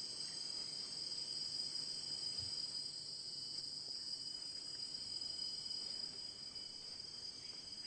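Insects chirring steadily in the background, a continuous high-pitched drone that fades a little near the end.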